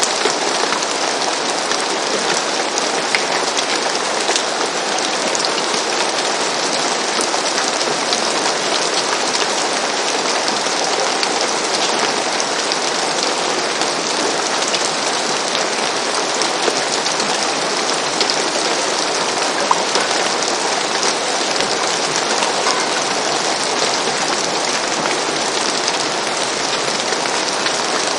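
Steady rain falling on a roof, an even patter with scattered distinct drop taps throughout.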